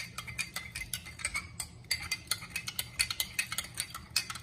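A metal spoon stirring sugar and vanilla into coffee in a glass, clinking against the sides in rapid, even strokes to dissolve the sugar.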